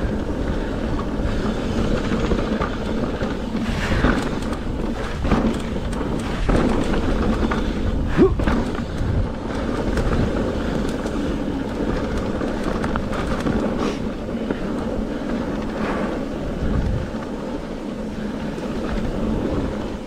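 Mountain bike ridden along a dirt trail: a steady rumble of tyres rolling over dirt and stones, with wind on the camera's microphone and the bike rattling, plus occasional sharper knocks, the loudest about eight seconds in.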